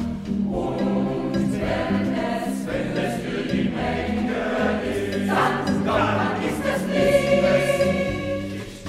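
A choir singing over a low, pulsing accompaniment, getting quieter near the end.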